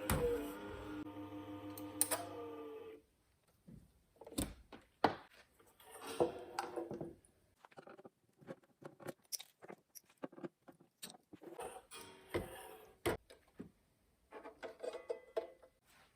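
A steady hum with several even overtones stops abruptly about three seconds in. Then come scattered light clicks, taps and short metallic rattles of small metal parts being handled, around the receiver's loosely mounted cooling fan and the screws that hold it to the chassis floor.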